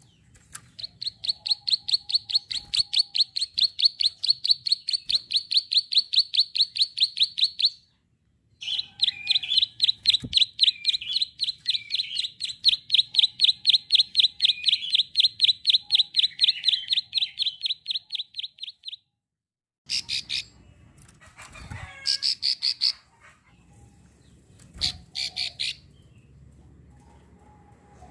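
Female plain prinia (prenjak sawah) giving its rapid clicking call: two long runs of fast, even ticks, then several shorter bursts after a brief cut-out.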